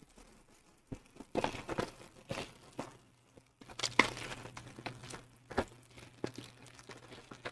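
Plastic film and paper rustling and crinkling in irregular bursts as a paper sheet is worked out of a rolled, plastic-wrapped diamond-painting canvas.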